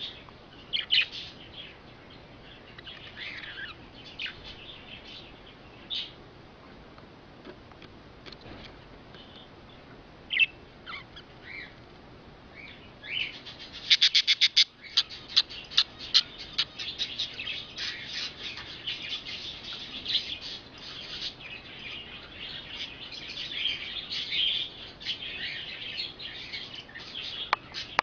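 Budgerigar chirping: scattered single chirps at first, then, about halfway through, a quick run of rapid clicks that turns into continuous chattering warble.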